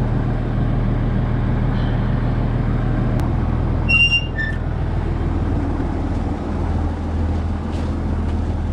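Old Case tractor's engine running steadily, with a couple of brief high chirps about four seconds in.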